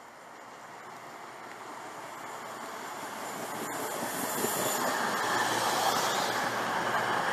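CrossCountry Voyager diesel multiple unit coming along the platform and running close past, its engine and wheel noise building steadily to a peak near the end.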